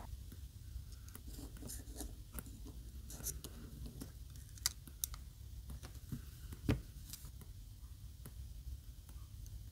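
Faint, scattered small clicks and scrapes of metal tweezers and a spudger on a smartphone's metal frame and flex cables, with a couple of louder ticks around the middle.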